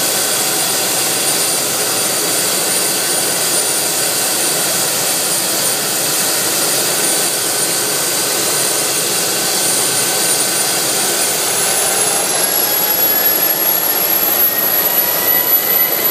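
London's Air Ambulance MD 902 Explorer helicopter running on the ground, its twin turbines giving a steady high whine over a loud rushing noise. About eleven seconds in, the whine rises in pitch as the engines spool up.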